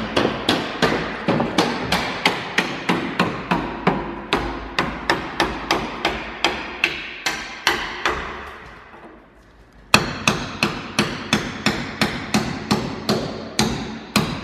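Hammer blows on a metal punch, driving out the pickup bed's rail bolts. The strikes come steadily at about three a second, stop for about a second and a half past the middle, then start again with a hard blow.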